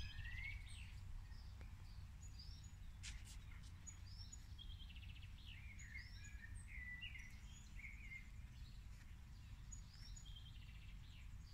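Birds singing and calling: many short chirps, whistles and quick trills, faint, over steady low background noise.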